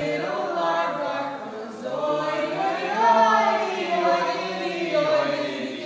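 Voices singing together, with held notes. The pitch rises to its loudest about three seconds in.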